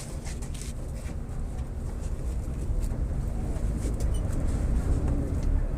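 VolksBus 17-230 OD city bus under way, its MAN D08 34 4.6-litre diesel and drivetrain running with the differential growling loudly. The noise grows louder from about two seconds in.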